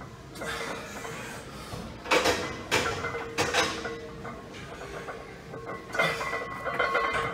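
A weightlifter's forceful breaths during a paused barbell front squat: three quick breaths a couple of seconds in, then hard exhales from about six seconds in as he drives up out of the squat.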